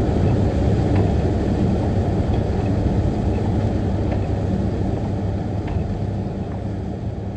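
Steady low rumble of a car driving at speed, heard from inside the cabin: road and engine noise, easing a little toward the end.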